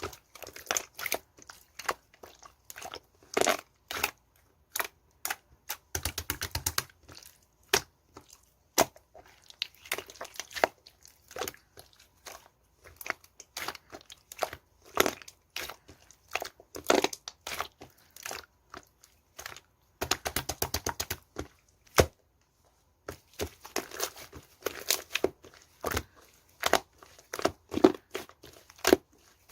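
Clay-mixed slime being pressed, stretched and folded by hand, giving dense runs of crackling and popping clicks with a few short pauses.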